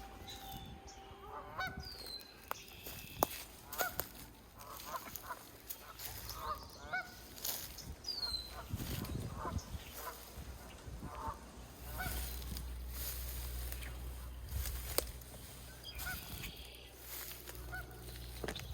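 Geese honking repeatedly in short calls, mixed with sharp snaps and crunches of footsteps pushing through brush.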